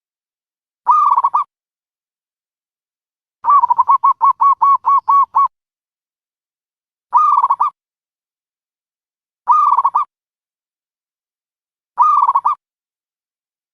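Dove calling: four short, clear coos repeated every couple of seconds, and about four seconds in a rapid run of about ten quick notes.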